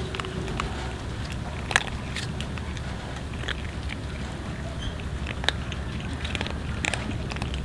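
A group of cats chewing food, with many small irregular clicks and crunches over a steady low rumble.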